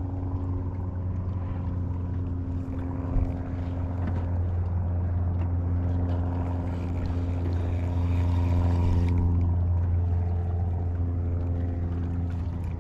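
Motorboat engine running steadily with a low hum, swelling to its loudest about eight or nine seconds in and easing off after.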